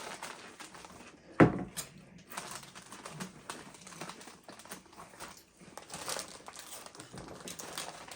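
Doritos chip bags crinkling in short, irregular crackles as hands dig chips out, with one loud knock about a second and a half in.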